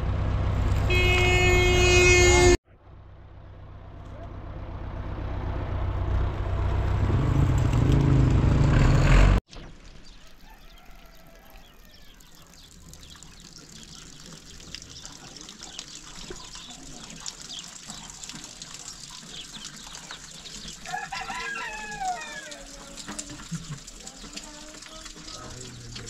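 Farm tractor engine running loudly, with a short held horn-like tone in the first couple of seconds; after a cut the engine sound rises steadily in loudness, then cuts off abruptly. A quieter steady outdoor background follows, with a rooster crowing about 21 seconds in.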